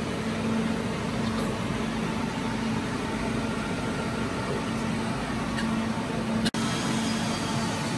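Steady whir of rack-server cooling fans in a server room, with a low hum held underneath. The sound cuts out for an instant about six and a half seconds in.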